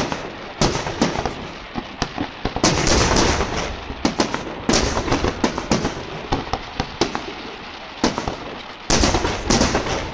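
Aerial firework shells bursting in quick succession: many sharp bangs in dense clusters, with rumbling and crackle between them.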